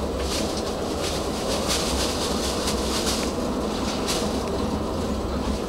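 Tram running slowly along street track, heard from inside the front of the car: a steady low rumble of wheels and motors, with a quick run of short rattling, hissy bursts through the first four seconds or so.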